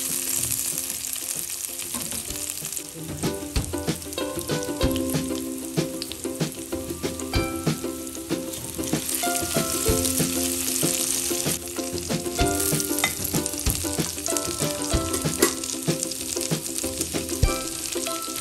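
Garlic, ginger and green chillies sizzling in hot oil in a karahi, with a spatula clicking and scraping against the metal pan many times as they are stirred.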